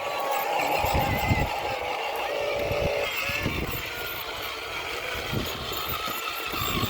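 Small electric motors and gearboxes of remote-control toy construction vehicles whining. The pitch drops a little about two seconds in, and scattered light knocks sound over the whine.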